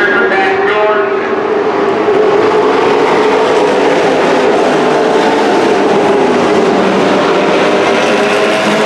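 Racing trucks' engines running hard around a dirt oval: a loud, steady engine drone that rises and falls slightly as the trucks go past.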